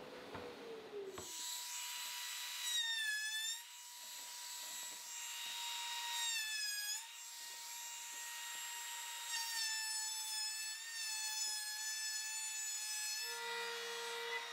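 Router with a chamfer bit running at a steady high whine, its pitch sagging briefly under load as a white oak slat is fed past the bit to cut a chamfer. A lower hum joins near the end.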